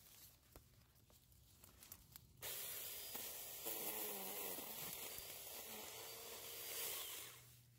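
JPOWTECH cordless mini chainsaw running and cutting small branches: a hissing buzz that starts suddenly a couple of seconds in, its motor pitch wavering under load, then dies away near the end.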